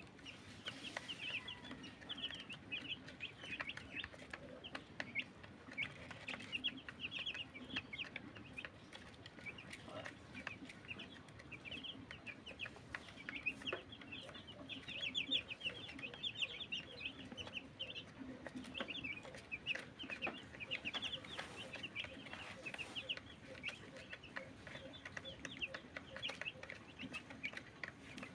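A group of young chicks peeping continuously, a dense run of short high chirps, with light ticks of beaks pecking crumbled feed from a plastic feeder.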